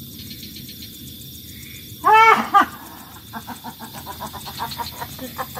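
A person's loud cry rising and falling in pitch about two seconds in, then a quick run of high-pitched, cackling, laugh-like yelps. It is the sound of someone going into a trance as a spirit is called into them.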